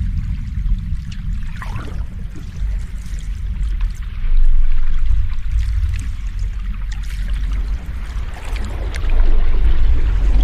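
Ocean waves washing in, a deep rumble of surf with fine splashing and trickling over it, swelling about four seconds in and again near the end.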